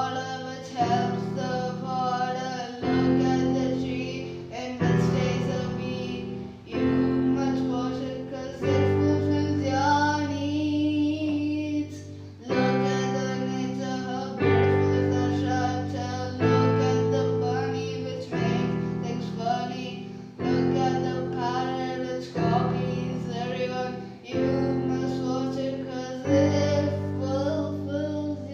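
A song: a singer's voice over sustained accompanying chords that change about every two seconds.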